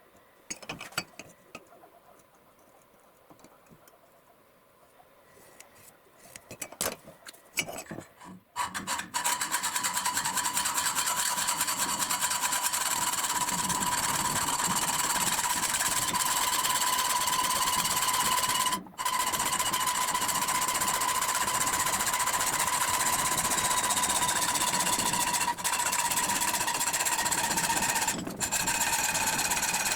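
A few scattered clicks and knocks of handling, then, about a third of the way in, an electric power tool starts up and runs steadily on the steel of a saw-blade knife blank. It runs with a constant whine and dips twice briefly near the end.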